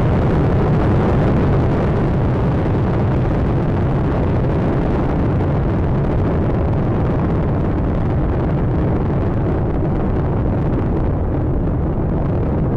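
Space Shuttle Atlantis's rocket engines, its solid rocket boosters and three main engines, giving a steady, loud rumbling roar as the shuttle climbs shortly after liftoff. The highest part of the noise thins out near the end.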